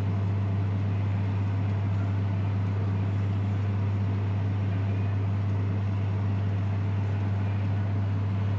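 Steady low machine hum, unchanging in pitch and level.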